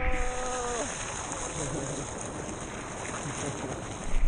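Pool water lapping and splashing around a waterproof action camera held at the water's surface, a steady even wash. A man's held 'aah' trails off and falls in the first second.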